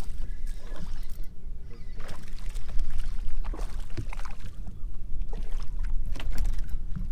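A hooked bass splashing at the surface beside a boat while a spinning reel is cranked, with a series of short, irregular splashes and clicks about two to six seconds in. A steady low rumble runs underneath.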